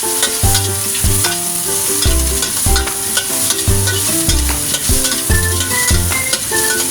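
Shrimp sizzling as they are sautéed in a pan, with light clicks of stirring, under background music with a melody and bass line.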